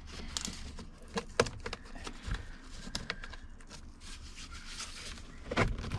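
Scattered sharp clicks and light knocks, the sharpest about a second and a half in and near the end, from hands working an interior door panel loose from a car door.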